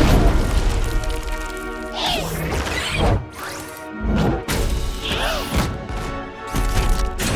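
Cartoon soundtrack: background music with a run of crash and thump sound effects, several loud hits spaced a second or two apart, some with sweeping glides.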